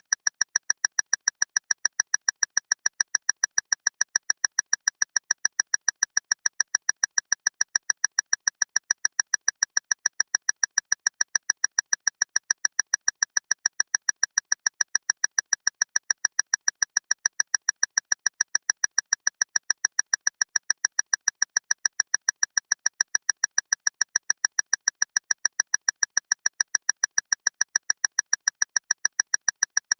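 A loud clock ticking fast and evenly, several sharp, high-pitched ticks a second without a break.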